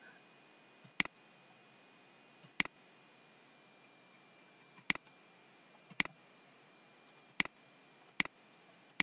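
Computer mouse clicking: seven sharp single clicks at uneven intervals, about one to two seconds apart.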